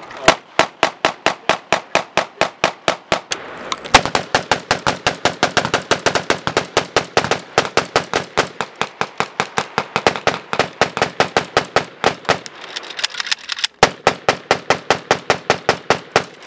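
Rapid rifle gunfire, sharp shots coming about four to five a second almost without a break, with one brief pause about three quarters of the way through.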